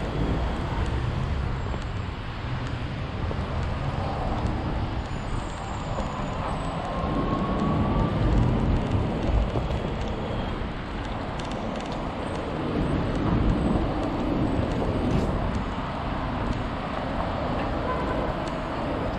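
Steady road noise from a kick scooter rolling along asphalt: a continuous rumble of its small wheels on the road surface, mixed with the sound of passing city car traffic.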